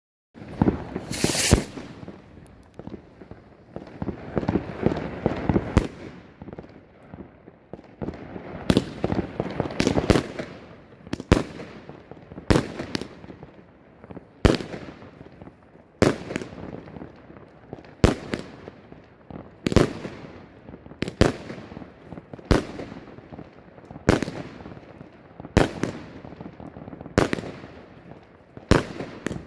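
Pinto 'Sydney' compound firework battery (25–30 mm calibre shots) firing: shots launching with hissing rising tails and breaking in sharp bangs about every one and a half to two seconds, with the loudest bang about a second in.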